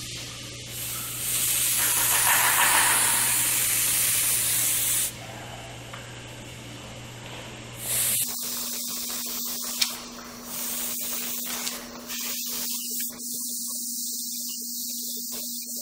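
Airbrush spraying in irregular bursts of hissing air, the longest and loudest from about one to five seconds in, sprayed unevenly on purpose to give a mottled leather look. A steady low hum runs underneath.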